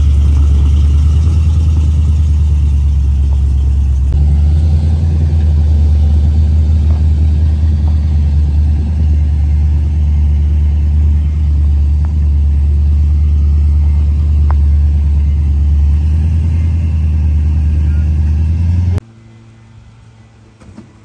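A car engine running steadily, loud and deep, stepping up slightly about four seconds in. It cuts off suddenly near the end.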